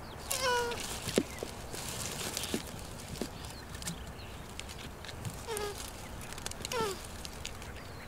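Male tortoise giving short mating calls while mounted on a female: three brief calls, one about half a second in and two near the end.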